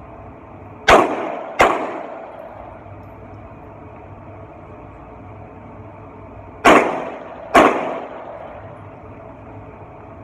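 Pistol fired in two pairs of shots at an indoor range, each shot ringing off the walls. The pairs come about six seconds apart, a double tap on one target and then on the next.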